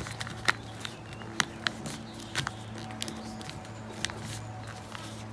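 Printer paper being folded and creased by hand into a paper airplane's wing: scattered crisp crackles and taps at irregular moments, over a steady low hum.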